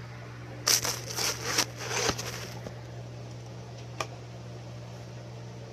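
A short flurry of rustling, scraping handling noise lasting about two seconds, then a single sharp click a little later, over a steady low hum.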